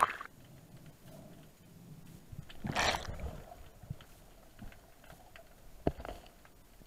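Muffled underwater sound as a free-diver goes down: the end of a splash right at the start as the camera goes under, a rush of water noise about three seconds in, and a sharp knock near six seconds, with faint small ticks in between.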